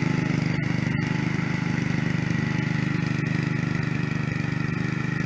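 Snapper rear-engine riding mower's 8 hp engine running steadily under load as it cuts grass, an even, unbroken hum.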